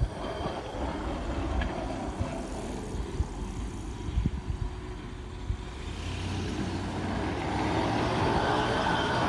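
Hi-rail pickup truck running along railroad track on its rail guide wheels: a low rumble with scattered thumps, growing louder in the second half, with a rising whine joining near the end.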